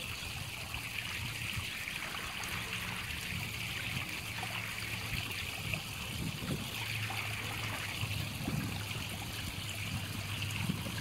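Pond water trickling steadily, with a low steady hum underneath.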